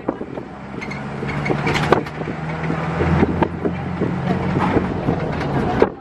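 Inside a moving vehicle: the engine runs with a steady low hum and road noise, and short knocks and rattles come at irregular moments.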